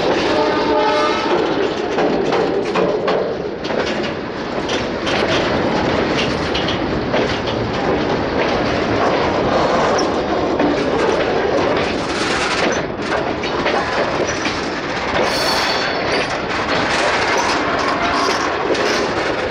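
Indian freight train running through, its wheels clattering over the rail joints in a loud, steady rumble. A horn sounds briefly at the start.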